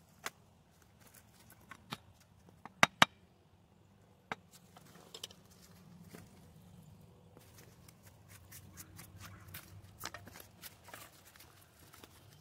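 Hard objects knocking and clicking together: a few single sharp knocks, two loud ones in quick succession about three seconds in, then a patter of lighter clicks later on.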